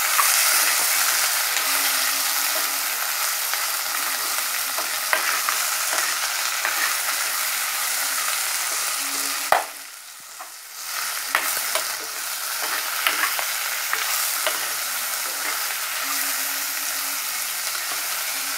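Sliced onions, green chillies and garlic sizzling in hot oil in a clay pot, stirred with a metal ladle that clicks and scrapes against the pot now and then; the onions are being sautéed until soft. The sizzle drops away for about a second right after a sharp knock halfway through.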